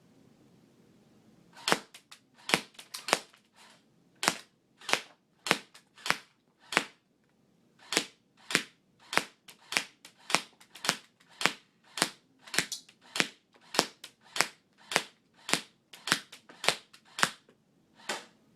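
ICS airsoft gun firing .12 g BBs one shot at a time, about thirty sharp cracks at an uneven pace of one to two a second.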